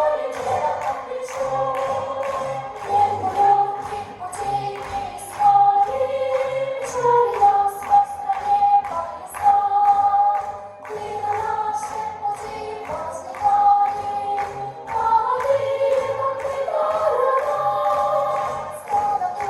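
Music: a song sung by a group of voices over instrumental backing with a regular beat.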